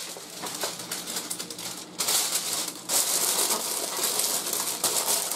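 Sheet of parchment paper crinkling and rustling as it is pressed and tucked by hand over a turkey in a roasting pan, in irregular crackles that get louder about two seconds in.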